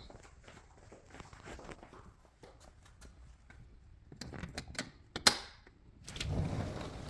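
A run of small clicks and knocks, then one sharp click about five seconds in. After it a steady rush of low noise begins about a second later.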